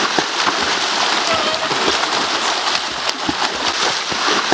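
Heavy splashing of several swimmers thrashing through pool water in a race, with faint voices underneath.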